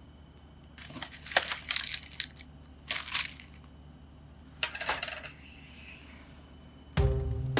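Buttons clinking: small hard objects tapping and clicking against each other in a few irregular clusters of sharp clicks, as a box of buttons is handled. Music begins near the end.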